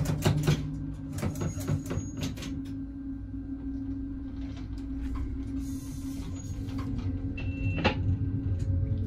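AKN VTA diesel railcar at a platform, heard from the cab: the doors closing with a series of clunks and knocks in the first couple of seconds over the steady hum of the idling engine, a short hiss of air about six seconds in, then the engine note rising near the end as the train starts to pull away.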